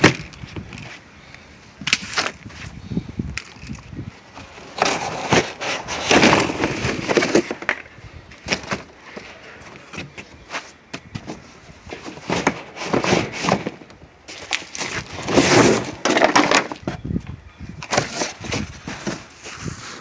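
Packaging being torn and pulled apart by hand in irregular bursts of crackling and ripping, with scattered knocks in between.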